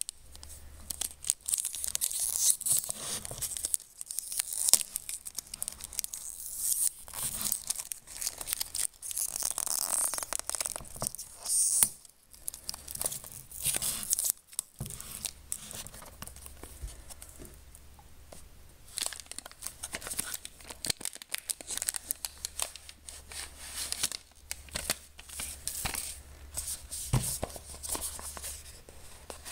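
Clear cellophane wrap being peeled and torn off a cardboard box by hand, crinkling and crackling irregularly, with a few brief pauses.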